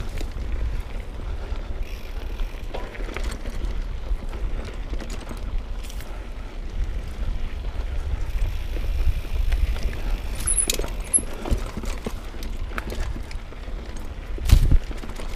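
Mountain bike ridden over a rough trail of roots and rocks: a steady low rumble from the jolting ride, with scattered rattles and knocks from the bike. A louder knock comes near the end.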